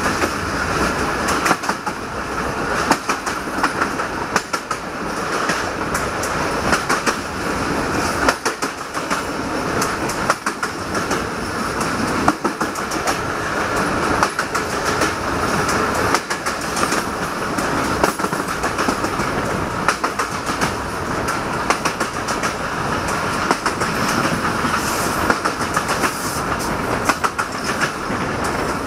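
Passenger coach of a regional train running at speed, heard from an open window: a steady rolling rumble and rush of noise with the wheels clicking irregularly over the rail joints.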